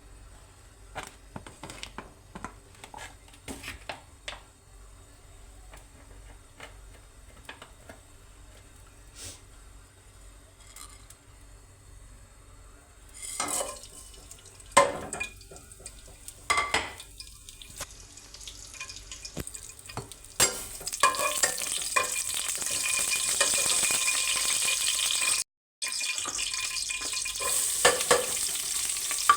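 Scattered clinks and taps of kitchen utensils, a louder clatter of a pan or spoon partway through, then a steady sizzle of food frying in hot oil in a pan for the last third, with a brief cut-out partway through it.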